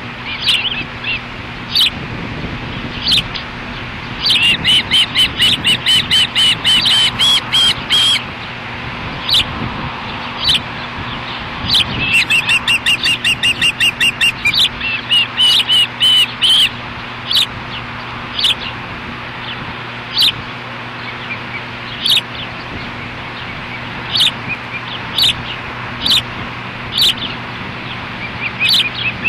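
Ospreys at the nest calling: sharp, high chirps about once a second, broken by two long runs of rapid, repeated whistled notes.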